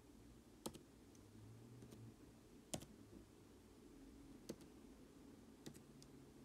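Slow typing on a MacBook Pro laptop keyboard: about five separate key clicks a second or so apart, two of them in quick succession near the end, over faint room hum.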